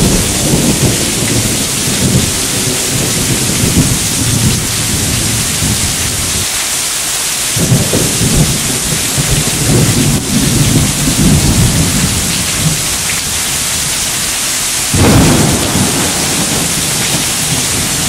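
Heavy downpour of rain hissing steadily, with thunder rumbling through most of the first half. A sharper, louder clap of thunder breaks in near the end and rolls on.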